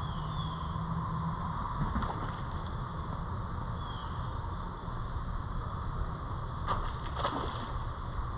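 Steady low rumble of outdoor riverside background noise, with a few faint short falling chirps and two sharp clicks about seven seconds in.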